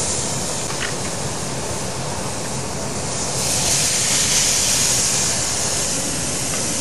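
Pineapple rings dipped in butter-rum sauce sizzling on the hot grates of a gas grill, a steady hiss that grows louder about three and a half seconds in as more slices go down.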